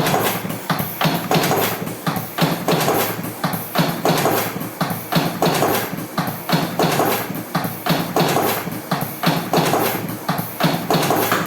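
Cigarette rolling machine running, with a regular mechanical clacking about twice a second.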